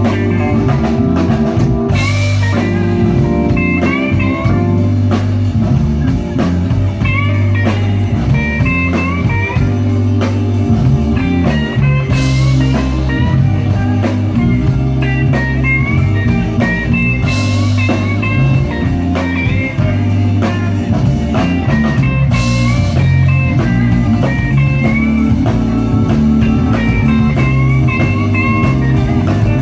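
Live blues band playing a slow blues with no vocals: lead electric guitar with bent notes over bass and drums, and cymbal crashes every few seconds.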